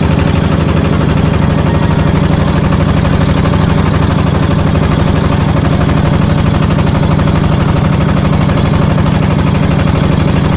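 Engine of a small motorized passenger boat running steadily under way, with a fast, even beat.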